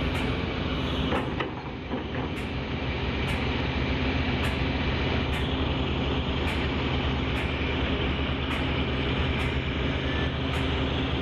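Large hydraulic mining excavator's diesel engine running steadily under load while it digs and loads a dump truck.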